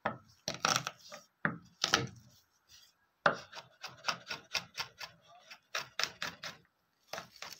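Kitchen knife chopping garlic cloves on a bamboo cutting board: a few sharp knocks, a short pause, then a quick run of about four knocks a second.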